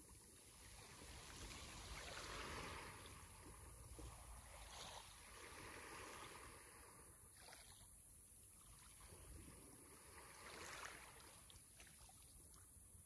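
Faint sea waves washing in, the surf noise swelling and fading in slow surges a few seconds apart.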